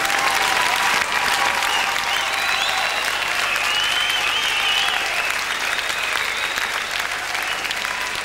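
Large audience applauding steadily, with a few high sliding tones partway through.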